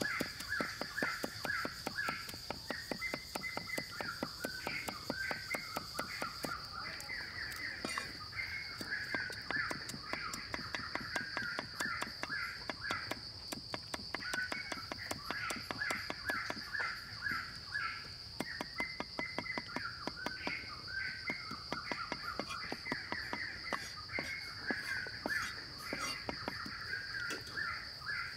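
Cleaver chopping garlic and chilies on a wooden stump block in rapid, steady knocks. Behind it are a steady high-pitched insect drone and birds calling over and over.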